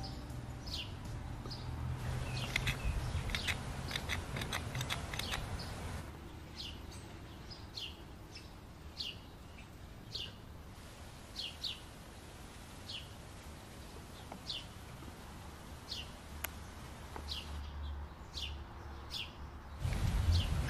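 A small bird calling over and over, short sharp falling chirps about once a second. A few seconds in, faint clicks come through.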